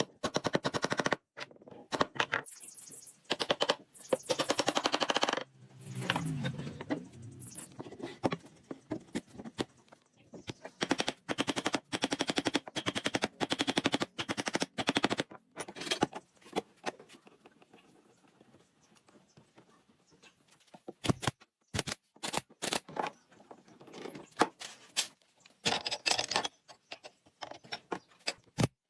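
Bursts of rapid, sharp clicks and knocks with short pauses between them, then a quieter stretch and a few single louder knocks near the end.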